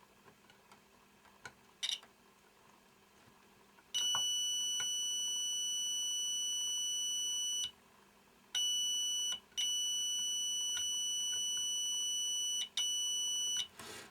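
Multimeter continuity buzzer sounding a steady high beep, first for several seconds, then in shorter stretches with brief breaks as the probes lose and regain contact. The suspect cracked circuit-board trace is showing continuity. There is a short scrape or click about two seconds in.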